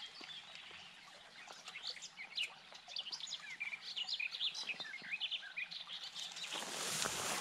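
Small songbirds chirping, a quick run of short high calls. A soft rushing noise swells near the end.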